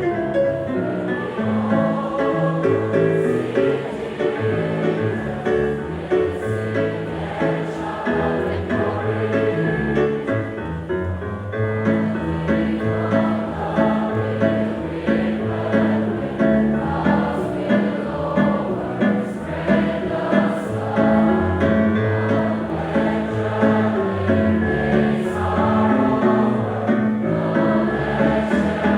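Students singing a hymn together as a group, in a continuous steady verse.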